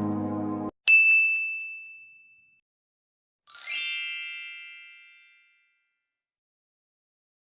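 Background music cuts off, then a bright electronic ding rings once and fades out. About two and a half seconds later a shimmering, sparkly chime swells briefly and fades away.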